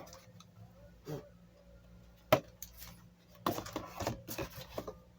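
Handling noise from the speaker and its packaging: one sharp click a little over two seconds in, then a second and a half of small clicks and rustling.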